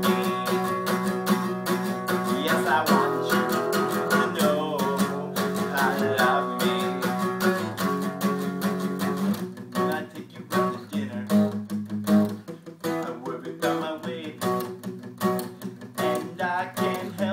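Steel-string acoustic guitar strummed in chords, with a man singing over it. About ten seconds in, the strumming turns choppier, with sharp separate strokes and short gaps between them.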